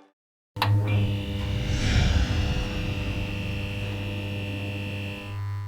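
A short electronic outro sound begins with a click after a moment of silence: held synthesized tones over a strong low hum, steady throughout and fading out near the end.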